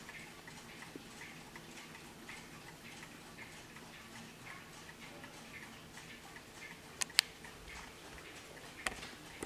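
Pendulum movement of a freshly serviced Warmink pillar mantel clock ticking steadily and evenly. Two sharp clicks about seven seconds in and another near the end stand out over the ticking.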